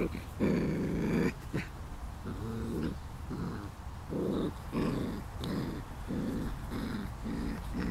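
Doodle puppies, almost five weeks old, play-growling as they wrestle: a run of short, rough growls, the first one near the start the longest and loudest.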